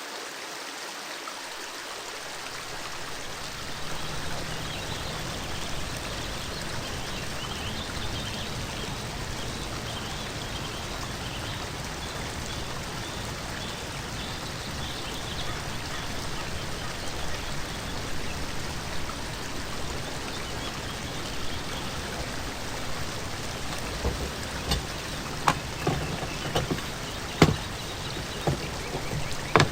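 Steady rain-like patter, with single louder drops or knocks landing more and more often near the end.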